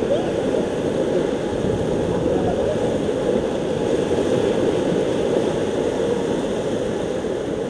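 Whitewater rapids rushing and churning close around an inflatable raft: a steady, unbroken rush of moving water.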